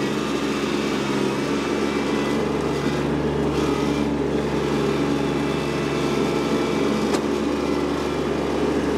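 Kubota B2601 compact tractor's three-cylinder diesel engine running steadily while working the front-end loader, with a brief knock about seven seconds in.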